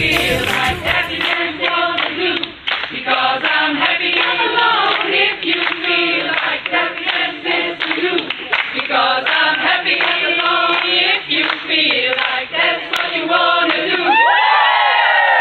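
A group of voices singing together in chorus over steady rhythmic hand clapping. Near the end this breaks into shouting and cheering.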